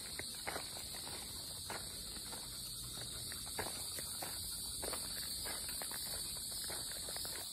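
A steady, high-pitched chorus of insects droning in summer woodland, with scattered light crackles and ticks, like steps or twigs on dry leaf litter.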